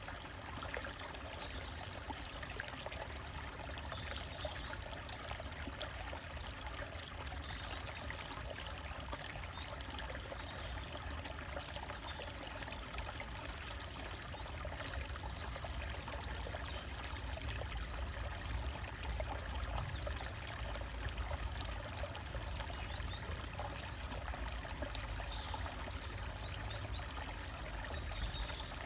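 Forest stream trickling and splashing over rocks in a steady rush, with brief high bird chirps a few times.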